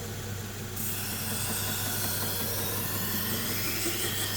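Belt grinder motor humming steadily while a knife blade is held against the running sharpening belt, a hissing rub that starts about a second in and continues.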